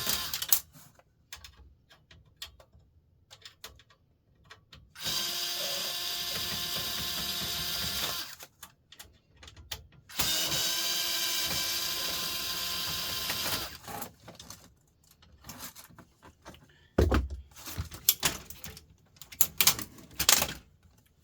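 A power screwdriver's motor runs in three steady whining runs of about three seconds each, backing screws out of the printer. Then come scattered clicks and knocks of parts being handled, with two loud thumps near the end.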